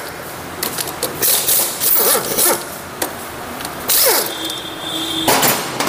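Wrench loosening the 10 mm bolts of a Hero Passion Pro BS6 engine's cylinder-head cover, heard as short bursts of metallic clicking and rattling. About four seconds in, a falling whine levels off into a brief steady tone.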